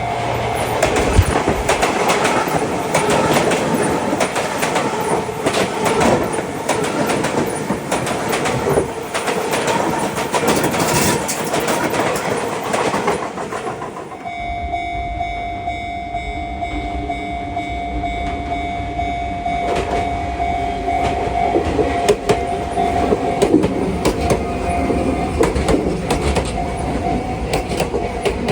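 An electric commuter train passing on the rails, with a dense rhythmic clatter of wheels over the rail joints. About halfway through it cuts to a steady low rumble under a steady ringing tone, a level-crossing warning bell, as the next train comes on.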